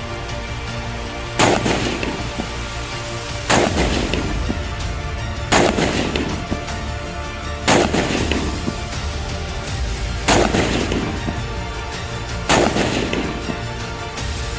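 Colt M4 carbine firing 5.56 mm single shots, six shots about two seconds apart, each with a long echoing tail. Music plays underneath.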